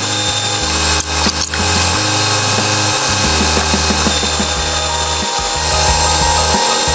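Crane's engine and hydraulics running steadily inside the operator's cab as a load is hoisted, with background music over it.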